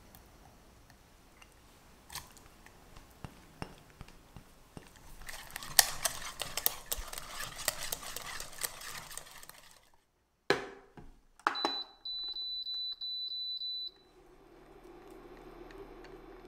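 A silicone wire whisk beats eggs in a stainless steel saucepan. Two knocks follow as the pot is set down, then an electric cooktop gives a rapid string of high beeps for about two seconds as it is switched on, and settles into a low steady hum.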